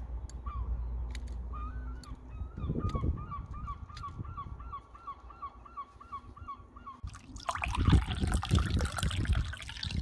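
Geese honking: a steady run of short, hooked calls, about three a second. About seven seconds in, a louder rough noise with low thumps takes over.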